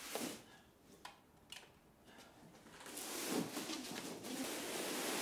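A few faint knocks and scrapes as a large cardboard box is brought through a door, then a steady hiss that grows louder about halfway through.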